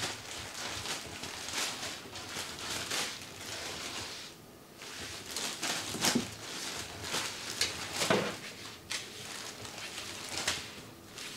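Thin plastic wrapper from a toilet-roll pack crinkling and rustling irregularly as a cat moves with its head inside it. There is a short lull about four and a half seconds in, and louder crackles at about six and eight seconds.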